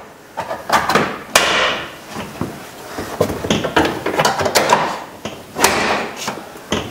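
Plastic retaining clips of a Toyota Sequoia front door trim panel snapping loose as a pry tool works around the panel edge. A run of clicks and scrapes with several sharp snaps, the loudest about a second and a half in and again near the end.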